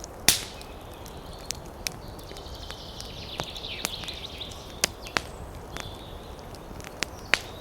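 Outdoor ambience: a steady background hiss broken by irregular sharp clicks and taps, with a high trilling call for a couple of seconds in the middle.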